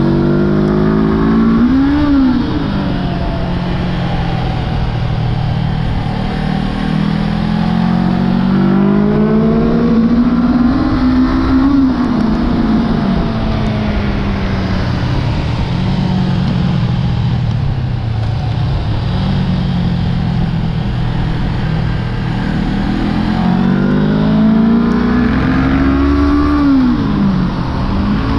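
Honda CB500F's parallel-twin engine, heard onboard at track pace: the engine note climbs under acceleration and falls back again and again, dropping sharply about two, twelve and twenty-seven seconds in as the throttle is closed for corners.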